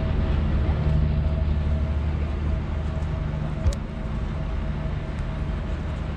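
A steady low engine hum at a constant speed, with a faint high whine over it, and one sharp click about three and a half seconds in.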